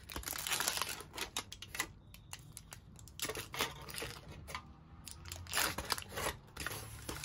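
Aluminium foil wrapper of a chocolate bar crinkling and tearing as it is peeled open by hand, in irregular crackles with brief lulls about two and five seconds in.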